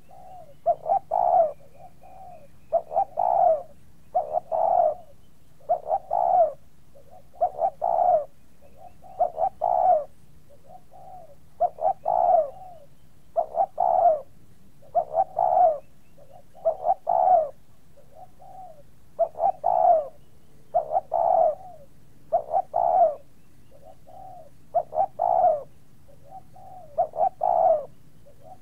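A dove cooing, a short phrase of a few low notes repeated over and over, one phrase every couple of seconds.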